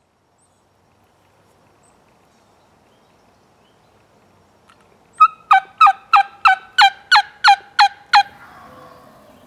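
Wing bone turkey call sucked to make a run of about ten sharp yelps, about three a second, each note falling in pitch, imitating a hen turkey's yelping. The run starts about five seconds in and ends with a soft trailing note.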